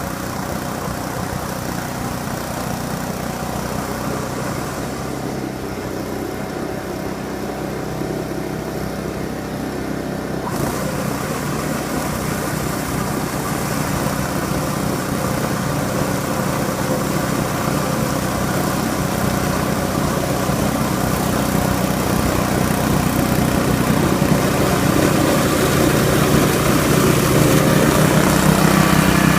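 Ariens 926 two-stage snowblower's small engine running steadily, growing steadily louder, with a hiss joining in about ten seconds in.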